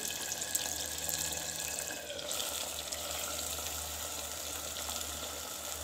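Steady sizzling hiss of a tomato and potato masala cooking in a clay pot (matka) over a gas flame.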